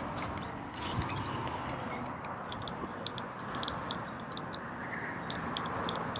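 A spinning reel being cranked to reel in line, giving a scatter of light, quick clicks over a steady hiss, with one dull knock about a second in.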